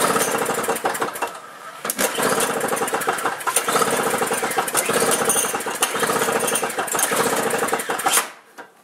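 Two-stroke snowblower engine being cranked over without catching, with a short dip about a second and a half in, stopping suddenly near the end. A cold engine that will not fire, which the owner suspects is down to a blocked carburetor.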